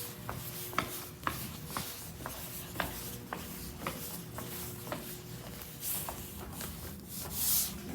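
Footsteps on a hard floor at a walking pace, about two steps a second, over a faint steady hum. Two brief rustles come near the end.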